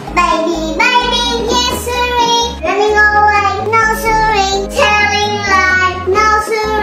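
A child's voice singing a melody of held notes over backing music.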